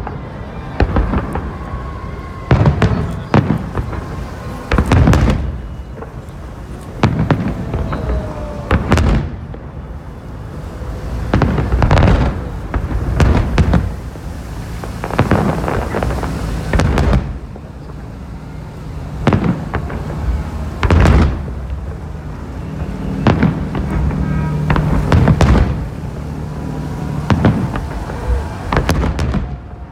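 Fireworks salute: aerial shells bursting one after another, a boom every one to two seconds over a continuous low rumble.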